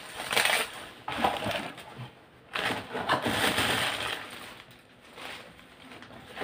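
Plastic packaging wrap crinkling and rustling as it is handled, in several bursts.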